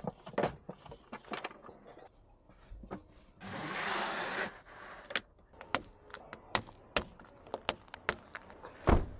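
Handling noises of a camper interior being packed up: scattered clicks and knocks as a wooden cabinet cover and fittings are handled, a hissing slide lasting about a second a few seconds in as a pleated window blind is drawn, and a sharp knock near the end as quilted window shades are pulled down.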